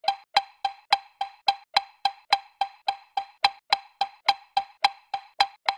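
A short, pitched pop sound effect repeated evenly about three and a half times a second, one pop for each letter of the alphabet as it appears.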